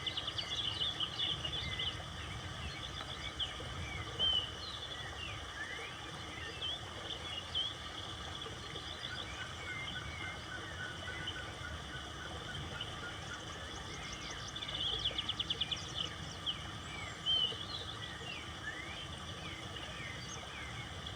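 Several birds singing and calling at once: short chirps and whistles, with fast trills near the start and again about three quarters of the way through, over a steady low background rush.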